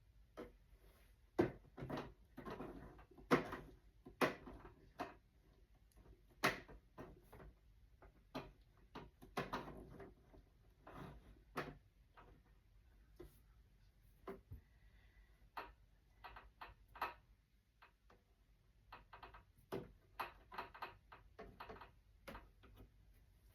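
Irregular clicks, taps and small knocks of hands working on a sewing machine's parts, with no motor running.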